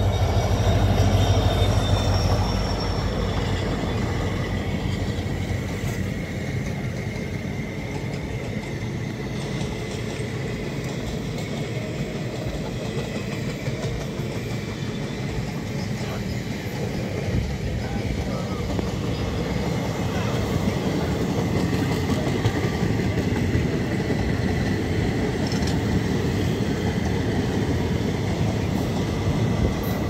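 Indian Railways diesel-hauled passenger train passing: a steady rumble of the locomotive and the coaches' wheels on the rails. It is loudest for the first two or three seconds as the locomotive goes by, then settles to an even rumble as the coaches follow.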